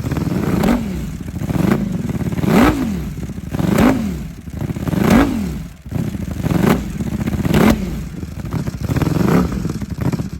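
Ducati Panigale V4 SP2's V4 engine, breathing through an aftermarket exhaust, revved again and again. Each blip rises quickly in pitch and falls back, about eight times, roughly one a second.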